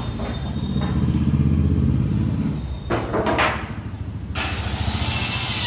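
A low motor rumble that swells and eases over the first few seconds, then, about four seconds in, the loud steady hiss of a woodworking power tool starting to cut teak.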